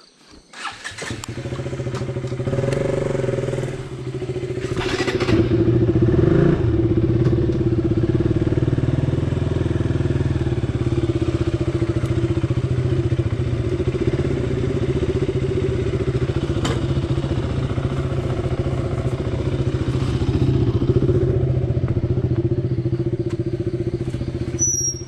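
A motorcycle engine starts about a second in, then runs steadily at low revs while the bike is ridden slowly.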